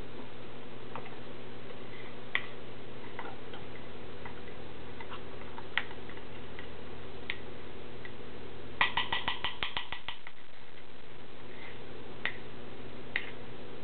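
A fork clinking against a glass while stirring thick brownie batter: scattered single ringing clicks, and a little past halfway a quick run of about ten taps that die away, over a steady low hum.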